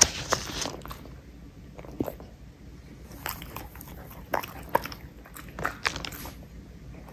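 Small dog chewing tiny pieces of treat, a scatter of short, sharp crunches and bites.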